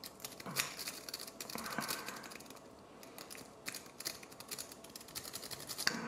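Law Lock Tools Nessie rake scraped in and out of a 5-pin padlock's keyway under tension: quick runs of light metallic clicks and scratches as the rake rattles over the pin stacks, in several short spells.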